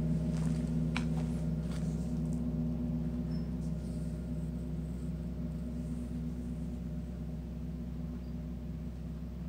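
Paiste 38-inch Sun gong ringing on after a strike: a deep, sustained hum of several low tones that slowly dies away. A few faint clicks sound in the first couple of seconds.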